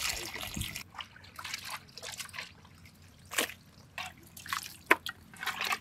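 Water poured into a clay pot of chopped raw country chicken, the pour stopping about a second in. Then hands work the wet meat, with scattered drips, squelches and small splashes as pieces are lifted and water runs off them back into the pot.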